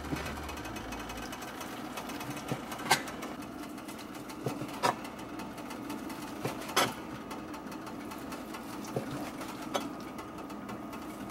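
A knife clicks against a cutting board every second or two while cooked beef shank is sliced, over a steady low hum.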